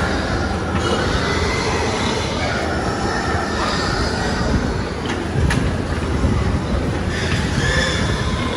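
Many pigs in a pen squealing and grunting together, a loud continuous din of overlapping squeals.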